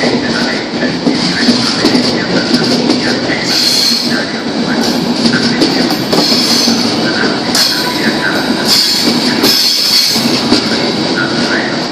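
Trenitalia Intercity passenger coaches rolling slowly past a platform: a steady rumble of steel wheels on the rails, broken by repeated high-pitched metal squeals that come and go every second or two.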